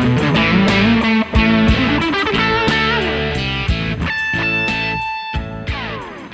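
Background music led by electric guitar, with plucked and strummed notes over a steady beat; it grows quieter from about halfway through.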